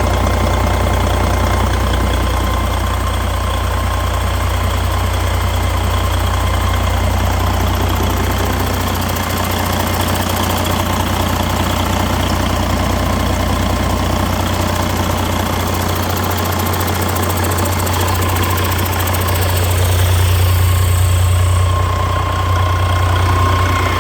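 Detroit DD15 14.8-litre inline-six diesel engine running steadily on a test run, with a strong low hum. It gets a little louder about twenty seconds in.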